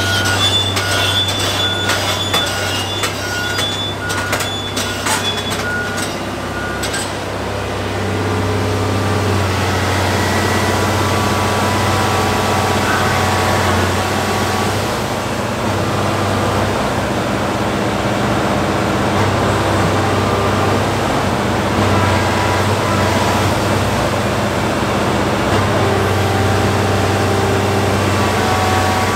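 Komatsu PC1250 excavator's diesel engine running with a steady low drone. For the first several seconds a pulsing warning beep and sharp clanking, typical of the crawler tracks moving and the upper structure swinging, then steady engine and hydraulic sound.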